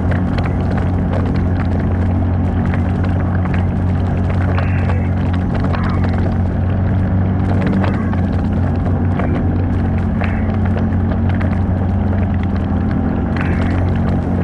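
Engine of an off-road 4x4 vehicle running at a steady, even speed, a constant low drone with occasional clicks and knocks over it.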